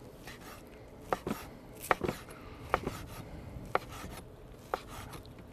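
Large kitchen knife chopping grilled ribeye steak into strips on a wooden cutting board, the blade knocking sharply on the board about once a second.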